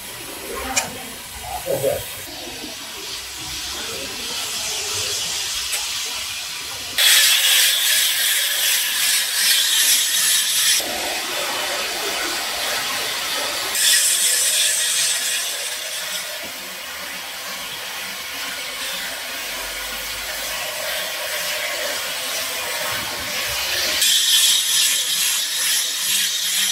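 Gear-driven rope-twisting machine running as cotton strands twist into rope, a steady rasping hiss that shifts abruptly in level and tone several times.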